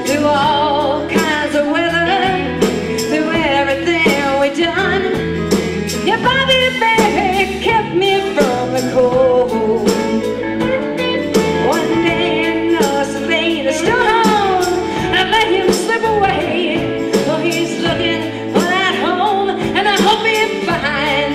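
Live band music with a steady beat, a voice carrying the melody without recognisable words.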